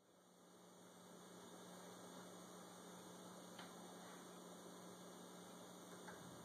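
Near silence with a faint, steady electrical mains hum, fading in over the first second or so.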